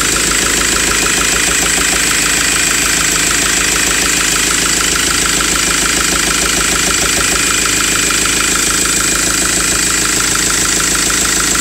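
Ford Transit engine idling steadily with a rapid, even knock running through it, the knocking the owner is recording the engine to show.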